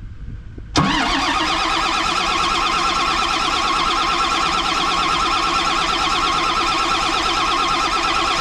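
Starter motor cranking a John Deere 724J loader's common-rail diesel engine, which turns over steadily but does not fire, because its fuel system is not yet primed after the repair. The cranking starts suddenly about a second in with a short rising whine, then settles into an even, pulsing drone.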